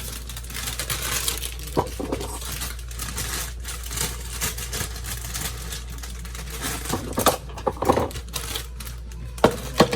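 Rustling with scattered clicks and knocks as smoothie ingredients are handled and packed into a blender cup.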